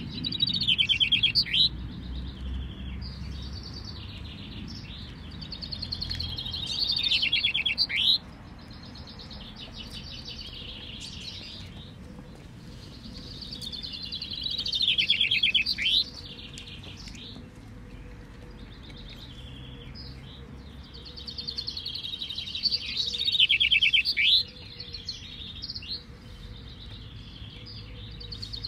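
Caged male common chaffinches singing in a finch-singing contest: loud song phrases, each a fast run of descending trilled notes ending in a sharp flourish, come about every seven to eight seconds, with softer songs from other finches in between.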